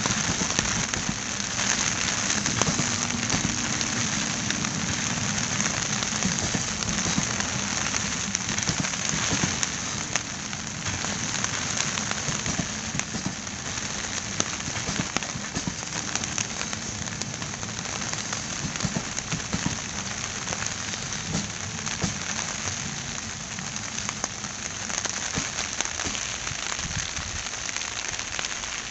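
LHB passenger coaches rolling past on the rails in rain: a steady hiss of wheels and rain with scattered clicks and a faint low hum, easing off a little as the rear coaches go by.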